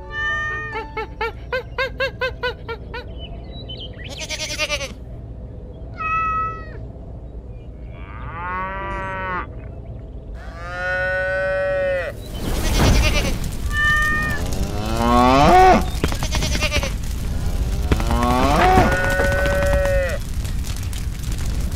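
Cattle mooing in a run of separate calls, mixed with higher, bleating calls; a steady rushing noise comes in about halfway through.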